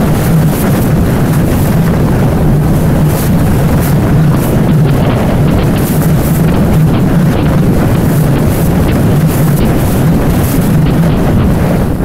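CFMoto CForce 1000 ATV's V-twin engine running steadily under load at riding speed, with heavy wind buffeting on the microphone.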